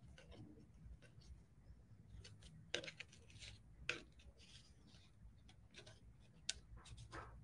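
Faint rustling of paper and a tissue napkin being handled and smoothed by hand on a tabletop, with a few light taps or clicks scattered through it.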